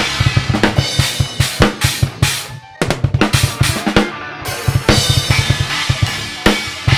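Acoustic drum kit with Paiste cymbals played fast: rapid kick-drum strokes under snare hits and cymbal crashes, with a short break just before three seconds in before the playing picks up again.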